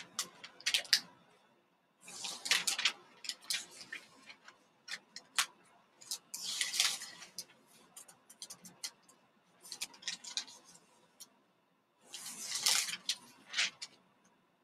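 Desk handling sounds through a video-call microphone: irregular sharp clicks and ticks, with three short bursts of rustling about a second each, cutting to silence in between.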